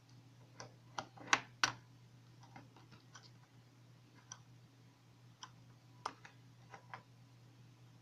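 Small hard clicks and taps of a plastic e-liquid bottle being handled in and out of its lighter-shaped case. A quick run of four sharper clicks comes in the first two seconds, then fainter clicks are scattered through the rest.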